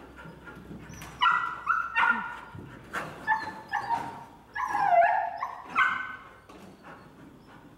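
A dog barking in a quick string of high-pitched barks and yips, about eight of them between one and six seconds in. One longer bark near the five-second mark slides down in pitch.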